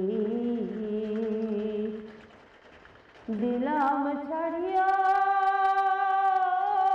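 A solo voice singing slowly with wavering pitch: one phrase that fades out about two seconds in, a pause of about a second, then a second phrase that slides up and is held as one long note.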